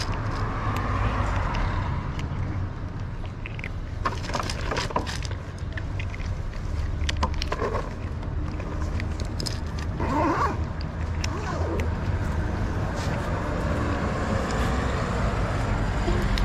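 Stray tabby kitten chewing dry cat food from a plastic dish, with scattered short crunching clicks, over a steady low rumble of street background.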